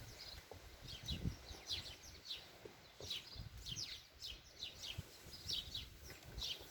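Small garden birds chirping over and over in quick, short, falling notes. Wind buffets the microphone now and then in low rumbles.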